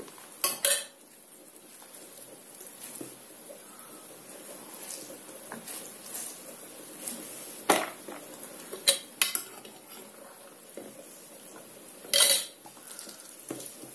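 Grated zucchini being squeezed out by hand, a faint wet rustle, broken by a few sharp clinks and knocks of bowls being handled. The knocks come near the start, about 8 and 9 seconds in, and a longer one about 12 seconds in.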